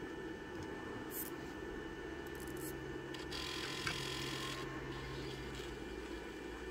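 Low, steady electrical hum with faint high-pitched whines, from bench electronics powering an instrument cluster under test. The hum stops a little before the end. A brief hiss comes a little past the middle, and there are a couple of faint clicks.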